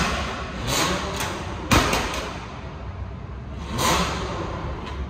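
Car engine revving in short bursts over a low idle rumble, with a few sharp cracks.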